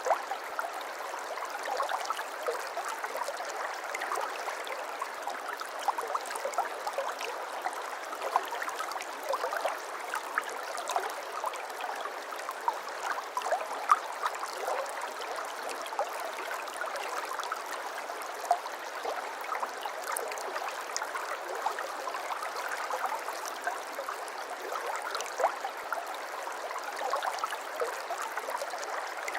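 Shallow stream babbling and trickling steadily over stones, with many small plinks and splashes of water running all through.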